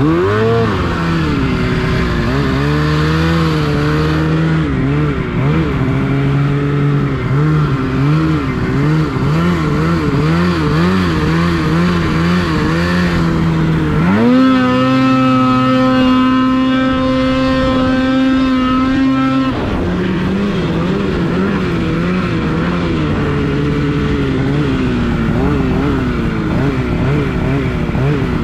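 Two-stroke snowmobile engine running hard through powder, its pitch rising and falling with the throttle. About halfway through it is held high and steady for some five seconds, then drops back to the rising and falling.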